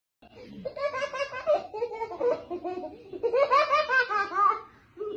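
A young child laughing hard in two long bouts of high-pitched giggles, the second louder, dying away near the end.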